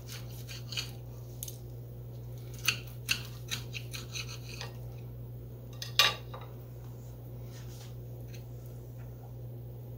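Knife and fork clicking and scraping on a china plate while cutting a roasted cabbage steak, with a sharper clink about six seconds in. A steady low hum runs underneath.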